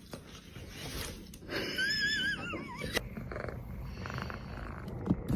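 A high, wavering animal whine or cry about two seconds in that wobbles and slides down in pitch, over a background of low rustling noise, with a sharp click just after.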